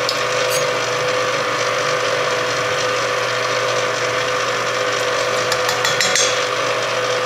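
Electric stand mixer running steadily, beating eggs and butter in its stainless steel bowl, with an even motor whine.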